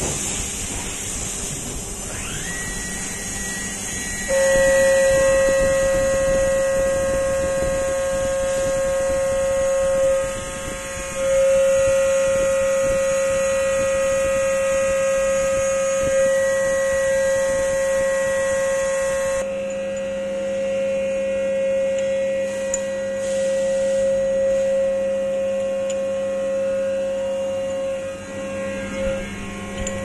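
CNC milling machine cutting 6061-T6 aluminium latch parts: a steady, high-pitched whine from the spinning cutter sets in a few seconds in and holds, dipping briefly about ten seconds in. A hiss of coolant spray runs underneath and stops about two-thirds of the way through.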